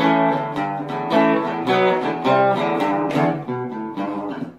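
Instrumental music: a guitar strumming and picking chords that change about every half second, dropping away briefly near the end.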